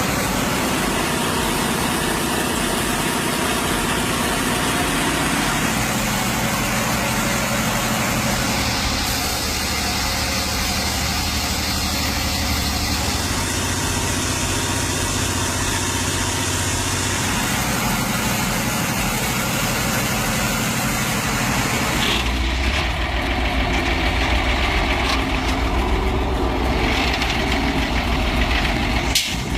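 Engine of heavy logging machinery running steadily. Its note changes about 22 seconds in.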